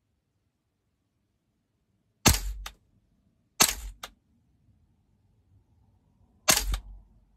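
Gas blowback airsoft gun firing three single shots a second or more apart. Each sharp crack is followed by a quick second click as the bolt cycles.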